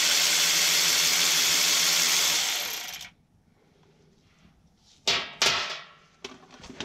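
Cordless power tool spinning out the valve body indexing bolt of a Nissan RE5R05A automatic transmission, running steadily with a low motor hum and winding down about two and a half seconds in. A couple of sharp metal clicks follow a few seconds later.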